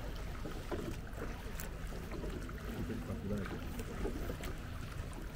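Rowboat on calm river water: oars dipping and water splashing and lapping, with a few small knocks, over a steady low wind rumble on the microphone.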